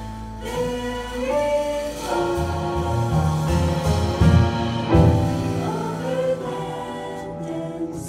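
Mixed-voice vocal ensemble singing sustained chords in close harmony through handheld microphones, with a few low, accented notes near the middle.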